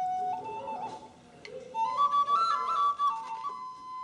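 Background music: a single melody line moving in held, stepwise notes, dropping away about a second in and picking up again shortly after.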